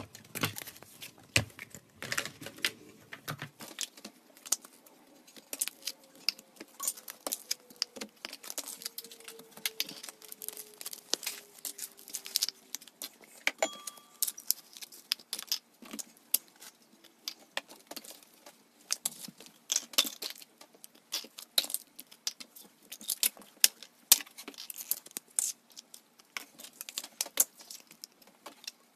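Slime being squished and kneaded by hand, giving a dense, irregular run of short sticky clicks and pops.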